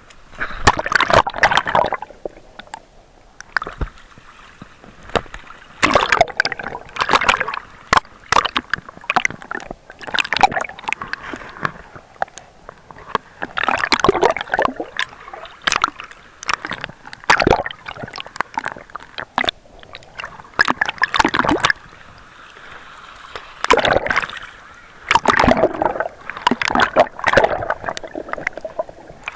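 Shallow sea water splashing and gurgling over submerged rocks, in surges every few seconds, each a cluster of crackling splashes and bubbles.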